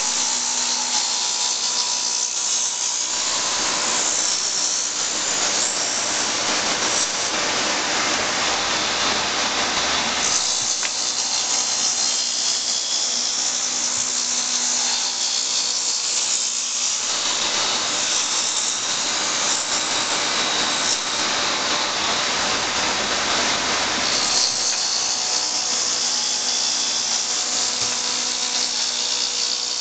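1998 Intorex RM-115 automatic copy lathe cutting wooden turnings: a loud, continuous whir and hiss of the cutters on the spinning wood. The sound shifts in a cycle that repeats about every seven seconds.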